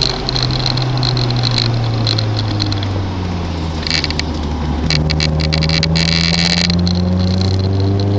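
Car engine running under driving, its note sinking over the first few seconds, then stepping up about five seconds in and slowly climbing again as it gathers revs. A patter of clicks and a high hiss sounds over it around the middle.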